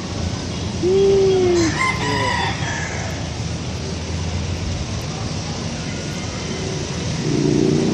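A rooster crowing once, about a second in, a pitched call lasting about two seconds, over a low hum of road traffic that fades soon after.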